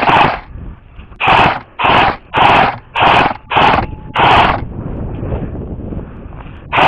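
Airsoft electric rifle firing in short full-auto bursts: about seven quick bursts in the first four and a half seconds, then another near the end.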